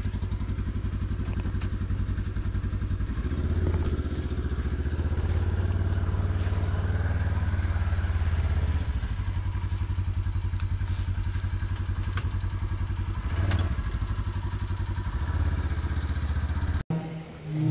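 An engine running steadily at a constant speed, with a few light clicks and knocks over it.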